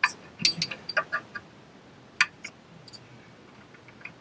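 Sharp metal clicks and clinks: a quick cluster in the first second and a half, then a couple more a little after two seconds, as an upper control arm bolt is worked by hand into its mount on the front suspension.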